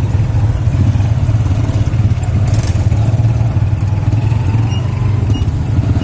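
Tuk-tuk's motorcycle engine running steadily under way, with a brief rattle about two and a half seconds in.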